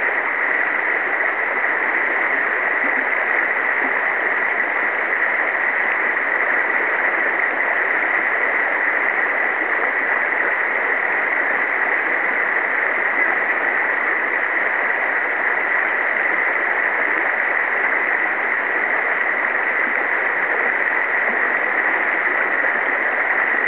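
Steady rush of shallow river water running over a riffle.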